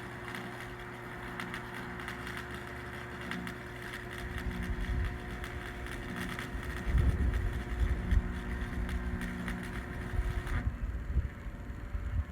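Stick-welding arc from a Hobart Stickmate AC buzz-box welder burning a 7018 AC rod: a steady crackling sizzle over the welder's transformer hum. The arc breaks off suddenly near the end. Wind rumbles on the microphone through the second half.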